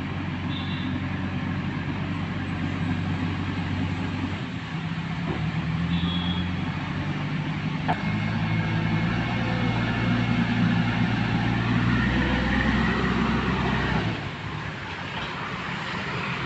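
JCB backhoe loader's diesel engine running, working harder and louder from about eight seconds in, then dropping back shortly before the end. A single sharp click about eight seconds in.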